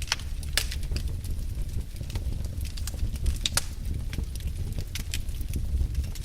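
Wood fire burning in a fireplace, crackling with irregular sharp pops over a low steady rumble of the flames.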